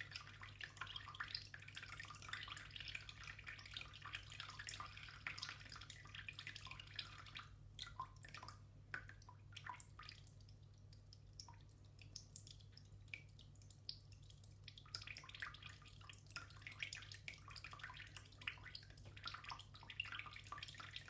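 Faint trickle of water from a bath tap splashing and dripping into the bath. Around halfway the trickle drops to a few separate drips for several seconds, then picks up again, over a steady low hum.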